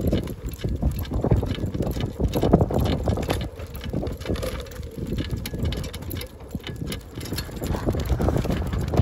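Sacco Cart dog cart rolling along an asphalt lane behind a trotting dog: a steady low rumble of the wheels with the metal shafts and frame rattling, and wind on the microphone.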